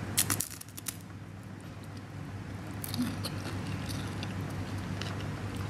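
Crisp wafer cone bitten off, a few sharp crunches in the first half-second, then faint, sparse chewing sounds with the mouth closed over a steady low hum.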